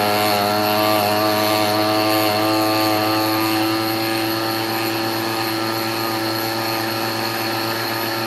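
Belt-driven cutting frame on a rose engine lathe spinning fast and cutting into the turning workpiece: a steady machine whine with several tones, its pitch dipping briefly at the start as the cutter binds a little in the cut, then holding steady.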